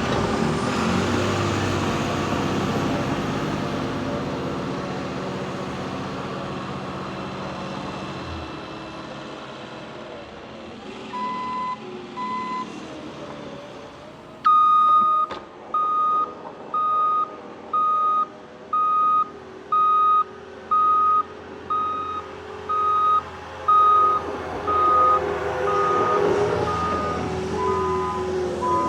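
Diesel engine of a heavy wheel loader plowing snow, loud at first and growing quieter as the machine moves off. About halfway through, its reversing alarm starts beeping steadily, a little faster than once a second, as it backs up.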